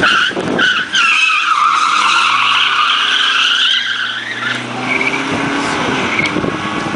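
Rally car sliding through a corner with its tyres squealing loudly for a few seconds, then its engine pulling hard as it accelerates away and fades down the road.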